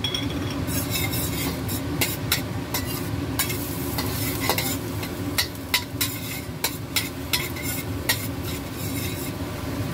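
Metal spatula scraping and clinking against a stainless steel wok as minced garlic and ginger are stir-fried in hot oil, with a light sizzle. The scrapes and clicks come irregularly over a steady low hum.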